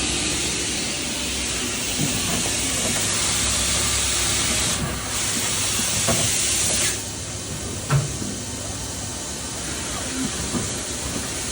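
Loud steady hiss from the running DMG Mori AA-1 CNC lathe cell. It breaks off briefly about five seconds in and stops sharply about seven seconds in, over a low machine hum. Sharp mechanical knocks sound about two, six and eight seconds in; the one at eight seconds is the loudest.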